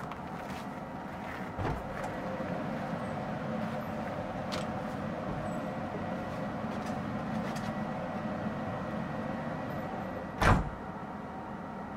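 Cab door of a Ford Cargo 1517 truck slammed shut about ten and a half seconds in, a single heavy thump, over a steady hum; a lighter knock comes about a second and a half in.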